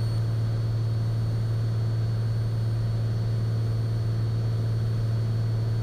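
Cessna 182 Skylane's engine and propeller in flight, a steady unchanging low drone.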